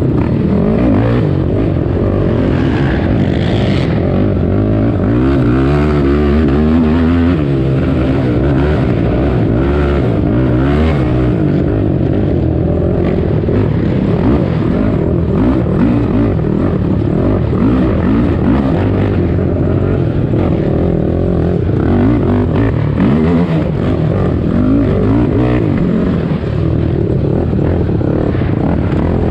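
Yamaha YFZ450 race quad's single-cylinder four-stroke engine under hard racing throttle, the revs rising and falling over and over as it is opened up and backed off through the corners and straights.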